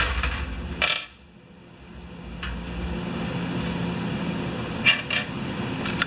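A few sharp metallic clicks and clinks: the loudest about a second in, and two close together near the end. They come from a screwdriver working the float-bowl screw and the brass float bowl coming off a Mikuni carburetor. A steady low hum runs underneath.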